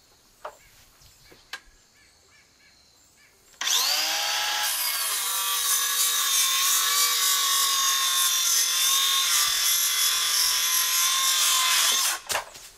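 Small Harbor Freight circular saw starting up a few seconds in, its motor whine rising as it spins up, then cutting through a wooden board to length at a steady pitch for about eight seconds before stopping near the end. Two light clicks come before the saw starts.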